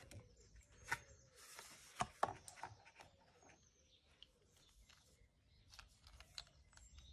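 Quiet handling noise of a cardboard box insert and a coiled charger cable: a few soft clicks and rustles, the sharpest about one and two seconds in, then only faint ticks.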